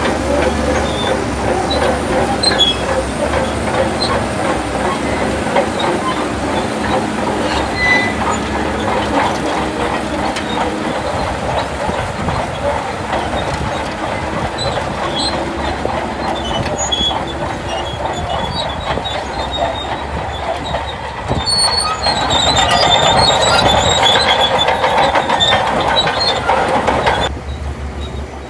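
Shantui DH17C2 crawler bulldozer working, its diesel engine running steadily under load while the steel tracks clank and squeal. It grows louder for several seconds near the end, then drops off suddenly.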